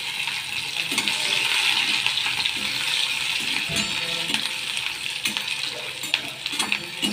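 Potato cubes and green chillies sizzling in hot oil in a steel kadhai while a steel spatula stirs them, scraping and clinking against the pan. The sizzle is strongest in the first few seconds, and the spatula clinks stand out more after about five seconds.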